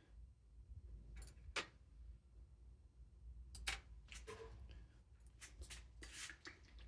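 Faint, scattered clicks and light taps of small objects being handled on a work table, over a low steady room hum.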